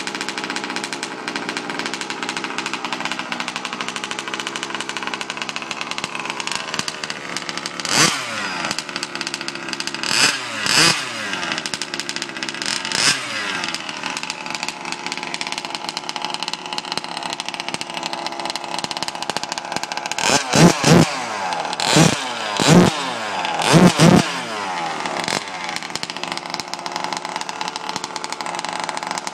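HPI Baja 5B's small two-stroke petrol engine, breathing through a DDM Dominator V2 expansion pipe, idling steadily. The throttle is blipped a few times around eight to thirteen seconds in, then a quicker run of about six sharp revs comes around twenty seconds in, each falling straight back to idle.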